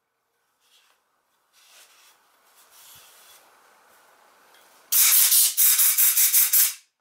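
Compressed air hissing from an air chuck on a scooter tyre's valve in a quick run of about eight short bursts, inflating the newly fitted tyre. Before it, a cloth rubs quietly over the tyre and wheel.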